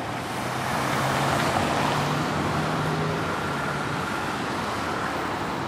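City bus moving through traffic, heard from inside: steady engine and road noise, with a low engine hum that rises a little in pitch and grows louder about a second in.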